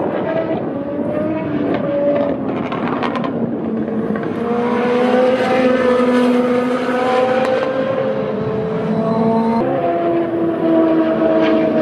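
Super Formula racing cars (Dallara SF14, 2.0-litre turbocharged four-cylinder) running past at a corner, several engine notes overlapping and gliding in pitch, loudest around the middle, with a fresh car's note cutting in about ten seconds in.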